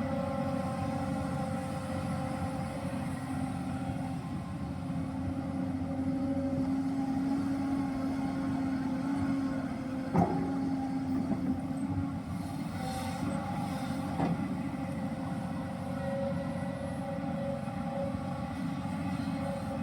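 Hyundai R215L SMART X Plus excavator running steadily under work, its diesel engine drone carrying a louder held tone for several seconds. A sharp metallic clank comes about halfway through, and a lighter knock follows a few seconds later.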